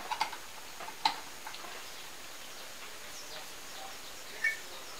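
Small handling clicks as an angle grinder's plug is pushed into a wall socket, with one sharp click about a second in. A short high chirp sounds once near the end over a faint steady hiss.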